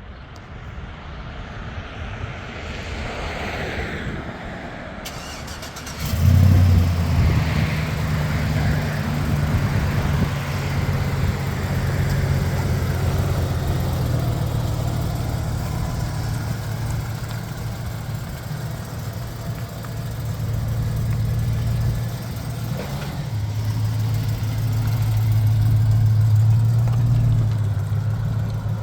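Chevrolet Avalanche pickup's V8 engine starting: it catches suddenly about six seconds in and then idles steadily.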